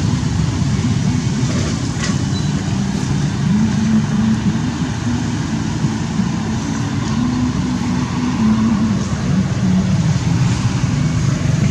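Steady low rumble of motor vehicle noise, running on without a break.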